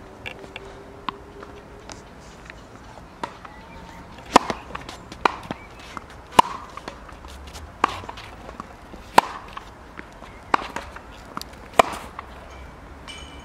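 Tennis balls struck by rackets in a baseline rally on a hard court. A series of sharp pops starts about four seconds in, roughly one every one to one and a half seconds, with smaller knocks between them.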